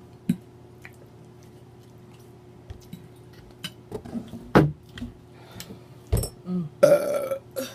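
Scattered clinks of cutlery and dishes at a meal, with a couple of louder knocks. Near the end comes a loud, nice strong burp lasting about half a second.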